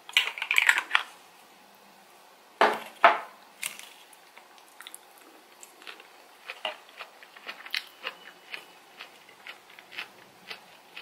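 Eating a salad: cutlery scraping on the dish, then two sharp clinks half a second apart about two and a half seconds in. Soft crunchy chewing with many small clicks follows.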